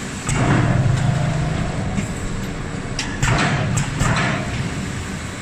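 Multi-station hot forging press working, with loud sudden bursts of noise: one starting just after the beginning and lasting over a second, then two more about three and four seconds in, over a steady low machinery hum.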